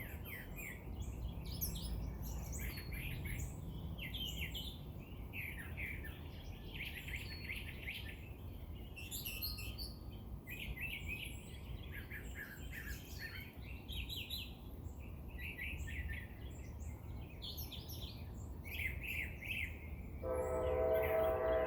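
Many birds chirping and calling over a steady low rumble. Near the end a steady horn starts, several pitches sounding together, and holds.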